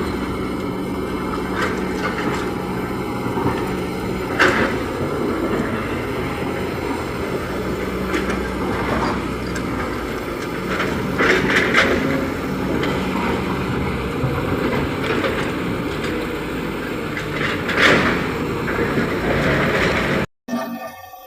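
JCB 3DX backhoe loader's diesel engine running steadily under work, with a few loud clanks from the digging gear. The sound cuts off abruptly near the end.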